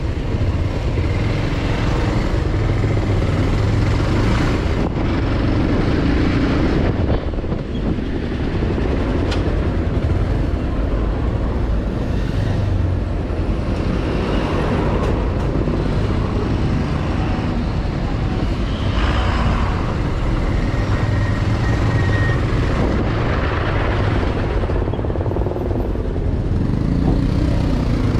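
Motorcycle engine running at low speed while creeping through slow, jammed traffic. Truck, van and car engines run close by.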